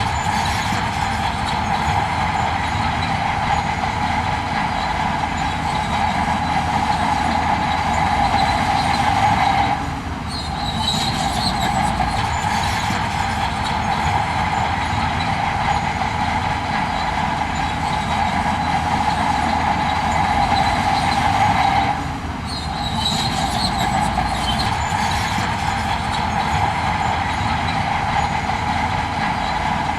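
Heavy earthmoving machinery working, a steady loud diesel-and-machine drone with a strong high whine, easing off briefly twice.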